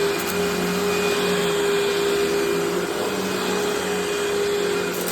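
Eureka Maxima 4700D upright vacuum cleaner, a 12-amp model, running steadily at full speed with a steady motor whine over the rush of air.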